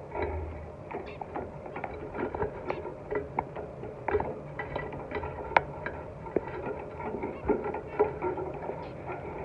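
Zebra finches busy at nest-building: quick light taps, pecks and rustles of nesting material, several a second, with short chirps mixed in. One sharper click comes about five and a half seconds in.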